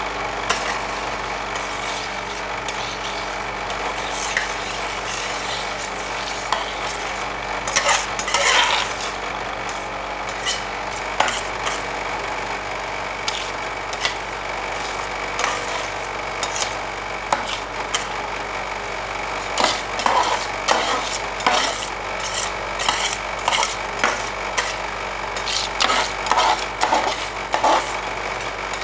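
Two steel spatulas scraping, chopping and tapping on the steel cold plate of an ice cream roll machine, working red dragon fruit into the cream base, with clusters of quicker strokes. Underneath runs the steady hum of the machine's refrigeration unit.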